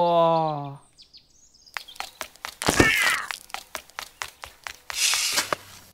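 A voice crying a drawn-out, falling "whoa", then a run of sharp clicks and cracks at about five a second, with a short squeaky tone about halfway and a brief hiss near the end: cartoon comedy sound effects for a fall.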